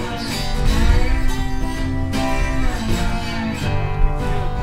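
Background music led by guitar, with sustained notes and chords.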